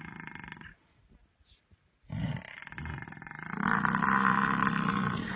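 Lions growling at buffalo: a short rattling growl at the start, then after a pause a longer, louder growl from about two seconds in.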